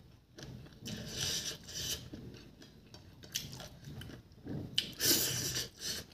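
Close-up mouth sounds of chewing chicken feet and rice eaten by hand, in irregular wet bouts, loudest about a second in and again around five seconds in.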